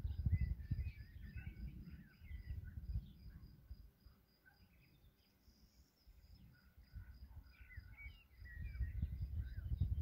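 Wind gusting on the microphone as a low rumble, easing off in the middle and picking up again near the end, with several birds chirping and an insect chirping in an even, high-pitched pulse about three times a second throughout.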